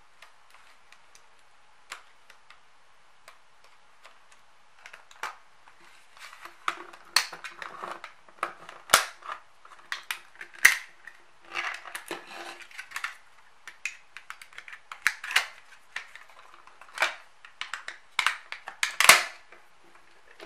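A plastic laptop battery case being pried open along its glued seam with a small flat screwdriver. Quiet at first, then from about five seconds in comes an irregular run of sharp plastic clicks and cracks as the seam gives way, the loudest snaps about nine, eleven and nineteen seconds in.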